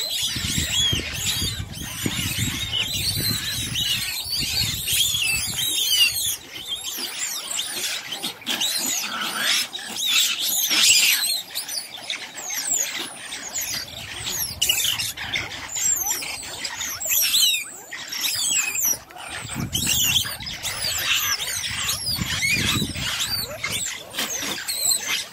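A group of banded mongooses chittering and squealing without pause in many rapid, high-pitched calls, the sound of the group alarmed at a monitor lizard by their den.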